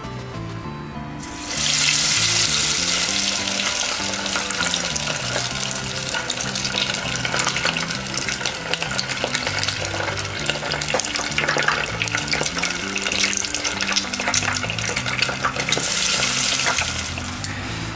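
Brown trout and vegetable tempura deep-frying in hot oil: a dense sizzle full of crackles that starts abruptly about a second and a half in.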